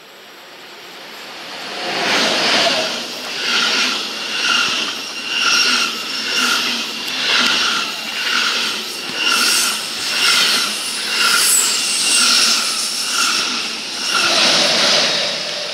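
Deutsche Bahn ICE 1 (class 401) high-speed train passing close by along the platform: a rushing rolling noise swells in about two seconds in, then pulses about once a second as coach after coach goes by. It peaks again near the end as the rear power car passes, then begins to fade.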